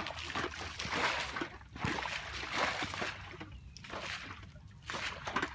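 Shallow muddy water sloshing and splashing in irregular bursts as hands grope through it for fish.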